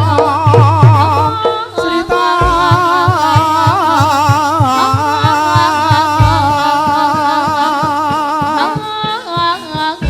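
Javanese jathilan dance accompaniment music: a wavering melodic line, sung or played, over fast, steady drumming. The melody comes in about a second in and drops out near the end.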